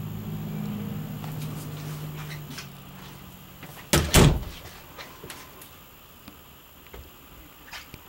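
A door knocking shut, two sharp knocks in quick succession about four seconds in, after a low steady hum that fades out over the first few seconds. Faint clicks follow.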